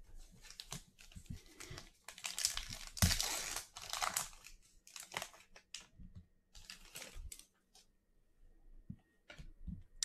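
Crinkling and rustling of trading-card packaging and cards being handled, in irregular bursts that are busiest a couple of seconds in.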